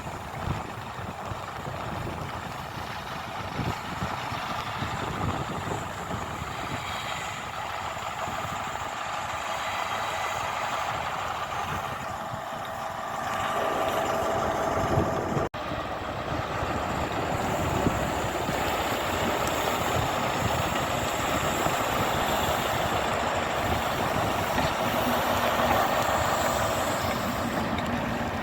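A diesel train's engine running steadily at the platform, growing louder about halfway through, with steady rain hissing underneath.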